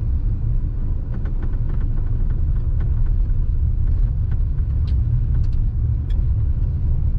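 Steady low rumble inside a moving Maruti Alto CNG in third gear under light throttle, with faint, irregular knocks scattered through it. This is the 'tak tak' knock that the owner traces to the gearbox and that appears only in third gear on a light press of the accelerator.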